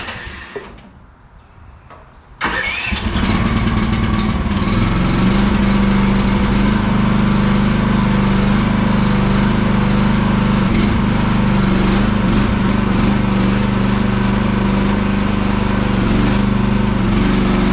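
Small gasoline engine of a Chinese mini excavator starting up about two and a half seconds in, then running steadily.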